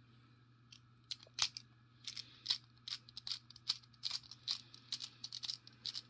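Irregular sharp metallic clicks and taps, a few a second, from the parts of an ASSA 600 pin-tumbler lock cylinder and small tools being handled while the lock is taken apart.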